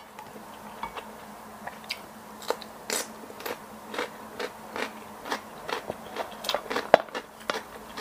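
A person chewing and biting a mouthful of rice and seafood stir-fry close to the microphone: irregular short clicks and crunches several times a second, with one sharper click near the end.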